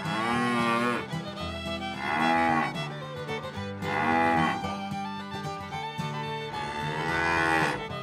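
Cows mooing, four long calls about two seconds apart, each rising then falling in pitch, over background music.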